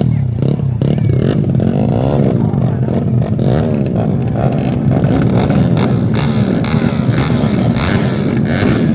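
Several tuned four-stroke 130 cc underbone racing motorcycles running hard together, their engine notes rising and falling and crossing as the riders rev and shift.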